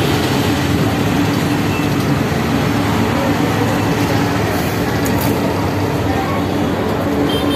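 Steady street din dominated by vehicle traffic, with a constant low hum running under it.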